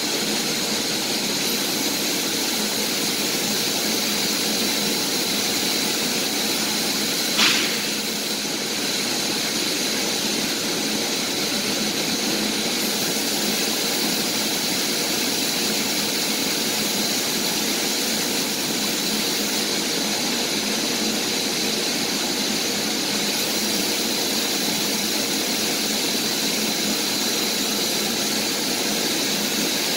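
Steady industrial machinery noise with a thin, steady high tone running through it. About seven and a half seconds in there is a single short click.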